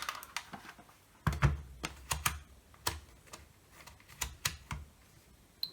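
Irregular light clicks and taps, with one duller knock about a second and a half in, from a multimeter and its test probes being handled and propped in place on a workbench.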